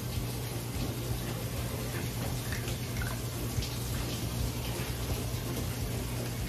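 Water running steadily from a tap, over a constant low hum, with a few faint light clicks.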